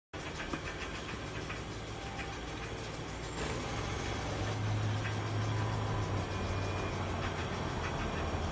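Home-built concrete 3D printer running as it extrudes wall layers: a steady low mechanical hum with faint scattered ticks, growing louder about three and a half seconds in.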